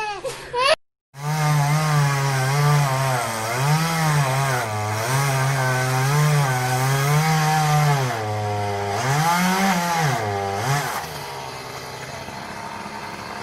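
Chainsaw engine running hard, its pitch dipping and rising again and again. About eleven seconds in it drops to a quieter, steadier running.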